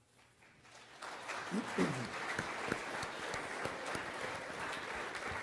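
Audience applause, starting about a second in and holding steady, with a brief voice calling out in it near two seconds in.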